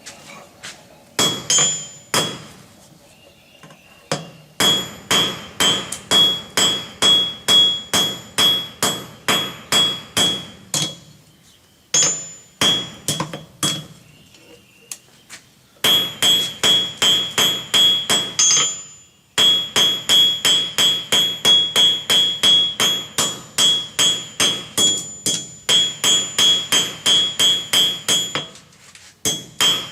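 Blacksmith's hand hammer striking a hot steel bar on an anvil in runs of quick blows, about three a second, with short pauses between runs. Each blow leaves a high metallic ring from the anvil, which has a magnet clamped on it to quiet it.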